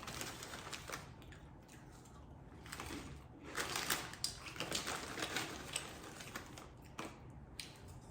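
Close-up crunching of crushed protein chips being chewed: a rapid, irregular run of crisp crackles, busiest from about three to six seconds in.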